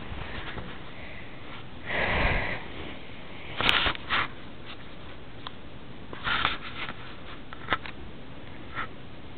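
A dog sniffing: a handful of short sniffs, the longest about two seconds in.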